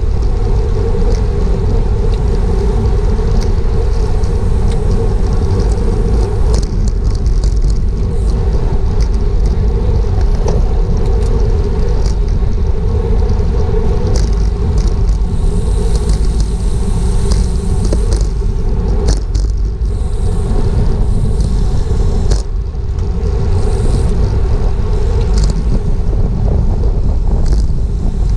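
Steady low wind rumble over a GoPro's microphone on a racing bicycle at speed, with a steady hum and scattered light clicks.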